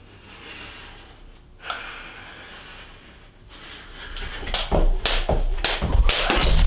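Heavy breathing, then from about four seconds in a jump rope slapping the floor and feet landing in quick succession, about three thuds a second.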